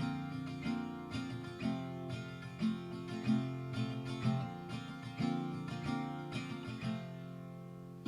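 Background music: acoustic guitar plucking and strumming a light tune.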